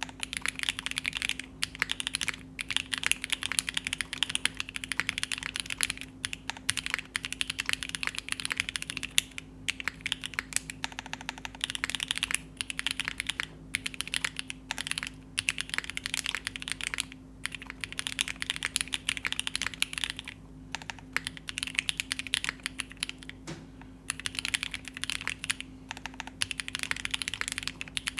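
Rapid typing on a Keycult No.2 65% mechanical keyboard with an aluminium plate, Krytox 205-lubed Tecsee Carrot switches and GMK keycaps, no sound dampening: a steady stream of keystroke clacks with brief pauses between bursts.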